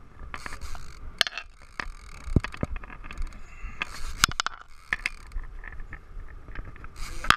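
Conventional fishing reel being cranked by hand, its handle and gears giving off irregular clicks and knocks over a low rumble.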